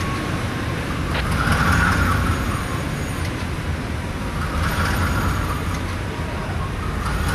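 Burlington Northern diesel locomotive idling with a steady low rumble, with a soft rising and falling hiss about every three seconds and a faint click about a second in.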